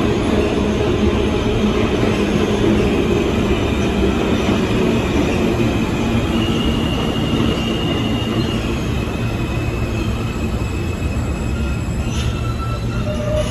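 New York City subway train running along the far track of a station: a steady rumble of steel wheels on rail, with thin high wheel squeals from about six seconds in and a lower squeal near the end.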